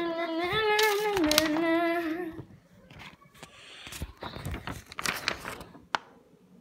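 A voice singing a wordless, wavering tune for about two seconds, then stopping. After that, paper rustles and crinkles, with a few small knocks as things are handled.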